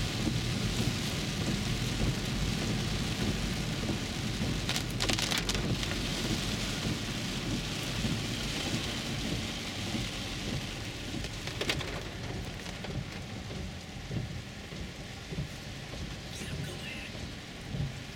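Heavy rain drumming on the roof and windshield of a 2011 Infiniti EX35, heard from inside the cabin over a low rumble of its tyres on the wet road. A few brief clicks come about five seconds in and again near twelve seconds, and the sound grows a little quieter in the second half.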